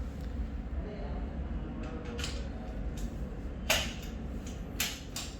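A few sharp clicks and knocks of the shopping trolley's frame and wheel parts being handled, the loudest about three and a half seconds in, over a low steady hum.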